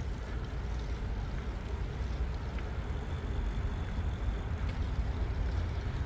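Steady low rumble of wind on the microphone and bicycle tyres rolling on asphalt while riding along at an even pace.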